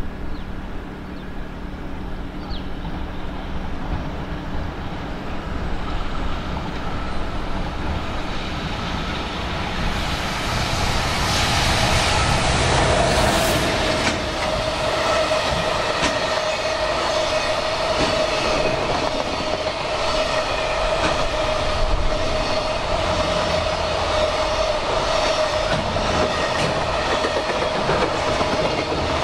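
Electric-hauled freight train passing through a station at speed. Its rumble builds and is loudest about twelve seconds in. The wagons' wheels then clatter steadily over the rail joints, with a steady high ringing tone from the wheels.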